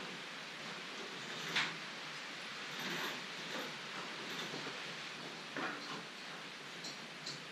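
A handful of short knocks and clinks from rigging a rope and pulley on a garage ceiling while standing on a stepladder, the loudest about a second and a half in, over a steady hiss.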